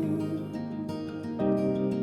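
Background music from a slow song, in a short instrumental gap between sung lines, with a new chord coming in about one and a half seconds in.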